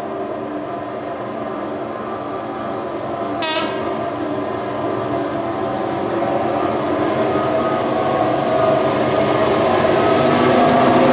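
Diesel locomotive approaching under power, its engine working hard and growing steadily louder as it nears. A short horn blast sounds about three and a half seconds in.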